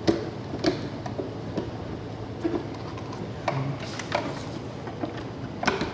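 Scattered light clicks and knocks of plastic casing parts being handled and fitted together, at irregular intervals with a cluster near the end.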